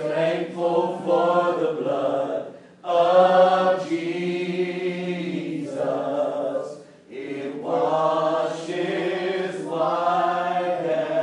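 Church congregation singing a slow worship song in long held notes, with short breaths between phrases about 3 and 7 seconds in.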